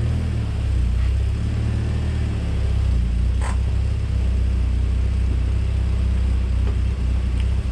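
Lotus Elise S1's Rover K-series four-cylinder engine running steadily at low revs, with one short sharp click about three and a half seconds in.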